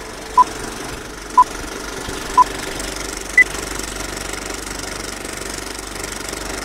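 Intro sound effect: three short beeps a second apart, then a fourth, higher beep. Under them runs the steady rattle of a film projector.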